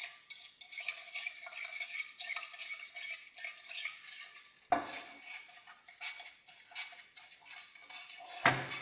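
A spoon stirring yeast, sugar and vanilla sugar into warm milk until the sugar dissolves, with a steady run of small scraping clinks against the container. Two louder knocks come about halfway through and near the end.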